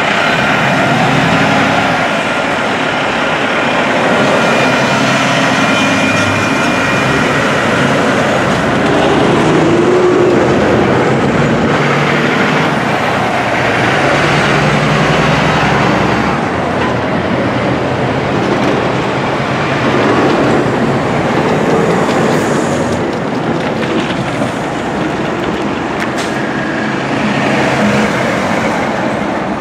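Heavy road traffic on the move: trucks and cars run and pass close by, a steady mix of engines and tyre noise.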